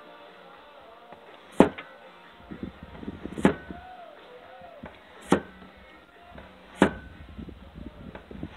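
Hand-forged Serbian chef's cleaver chopping slices off a potato, the blade knocking down onto a ridged board with each cut: four sharp chops, a little under two seconds apart.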